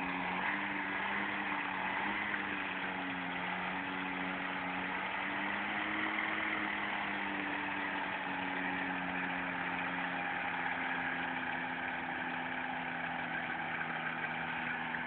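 Engine of an Apollo ultralight trike running steadily, driving its propeller, with a slight rise and fall in pitch about six seconds in.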